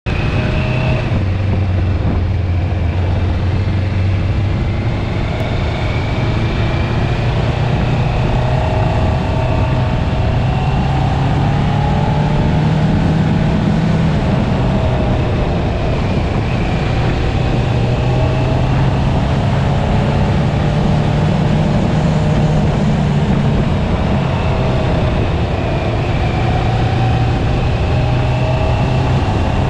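650 cc sportbike engine running on the road, its pitch drifting up and down with the throttle, under heavy wind noise on the onboard microphone.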